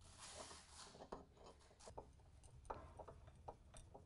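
Near silence, with a faint rustle at the start and a few faint, scattered clicks as screws are tightened by hand from under a desk's work surface.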